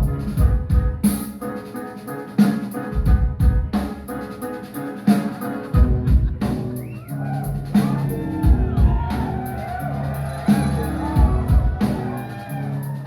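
Live band playing an instrumental stretch: a drum kit and bass groove, with swooping, gliding tones coming in about six or seven seconds in.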